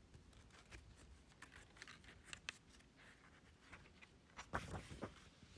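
Near silence: quiet room tone with faint scattered small clicks, and a brief soft rustle about four and a half seconds in.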